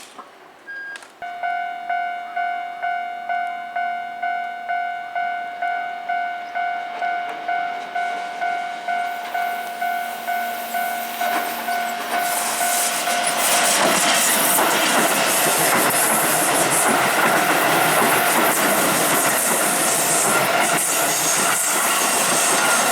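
Japanese level-crossing alarm starts about a second in, an electronic bell ringing about twice a second. From around twelve seconds in, a Keihan Main Line electric train comes through the crossing and its wheels on the rails rise to a loud steady rush that lasts to the end, with the bell still ringing under it.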